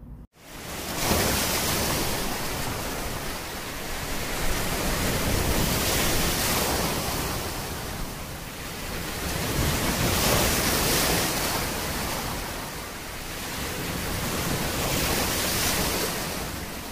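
Ocean surf: a steady rush of breaking waves that swells and eases every few seconds, starting abruptly just after a brief dropout.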